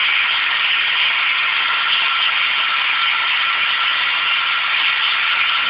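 Emco Unimat SL mini lathe, converted to CNC, running with its tool taking a steady facing cut across a metal disc: an even, unbroken hiss with a faint steady whine of the drive.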